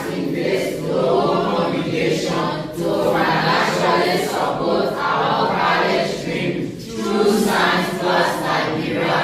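A group of children singing together as a choir, many young voices at once.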